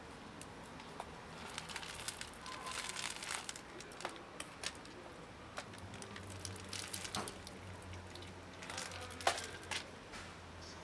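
A thin clear plastic food container crinkling as dry cat kibble is shaken and tipped out of it onto concrete, heard as three bursts of clicking and crackling patter.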